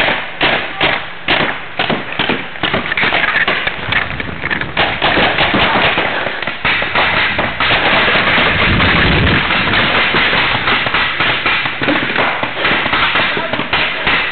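Paintball markers firing: separate sharp shots at first, about two or three a second, then from about five seconds in a dense, rapid, almost continuous rattle of shots, with a brief low rumble around nine seconds in.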